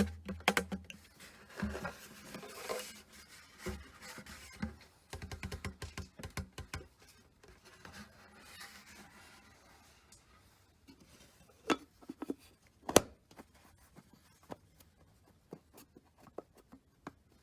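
Handling noises from topping up windshield washer fluid: scattered plastic clicks and taps, with a quick run of ticks in the first half and two sharp knocks past the middle, the second the loudest.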